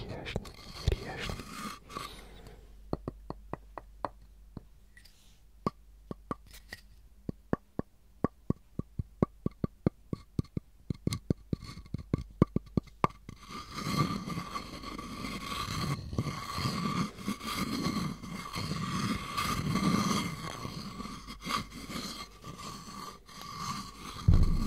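Wooden pestle against a wooden mortar: a long run of light, quick taps, about four a second, then from about halfway a steady rubbing scrape of the pestle around the mortar with a faint steady ring. One louder knock near the end.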